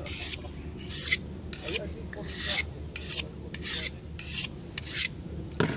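Knife blade drawn back and forth across a sharpening stone in about nine quick rasping strokes, raising a burr on the edge, with a sharp knock near the end.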